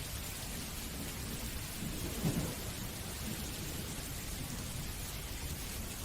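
Steady rain, an even hiss, with a brief low rumble of thunder about two seconds in.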